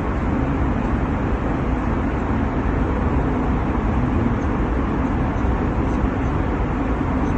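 Steady cabin noise of an Airbus A320 in flight, an even rushing hum of engines and airflow about 75 dB loud, heaviest in the low end with a hum near 250 Hz.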